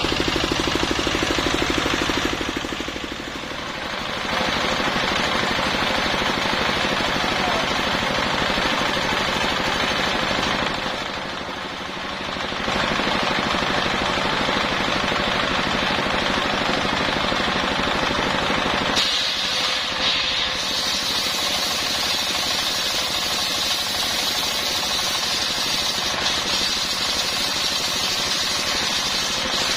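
Large circular saw blade ripping a coconut palm (glugu) log lengthwise into beams: a loud, continuous running noise with a fast pulsing rattle. It dips briefly twice, and from about two-thirds of the way through the cut turns harsher and higher-pitched.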